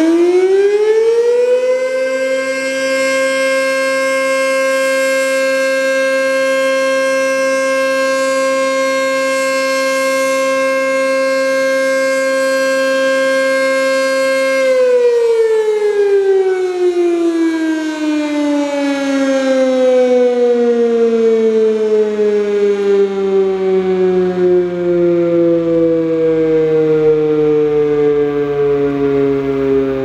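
Sentry 7V8 outdoor warning siren sounded as a noon whistle test. It finishes winding up to full pitch about two seconds in and holds a loud, steady tone. About halfway through it is switched off and winds down in a long, slow falling moan.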